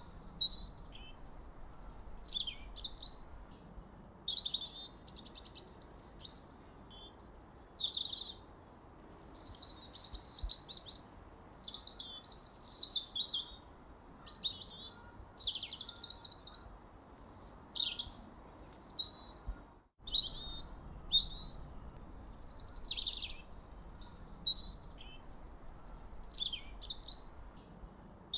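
Small songbirds chirping and singing in short, quick phrases that come every second or two over a faint steady hiss, with a momentary break in the sound about twenty seconds in.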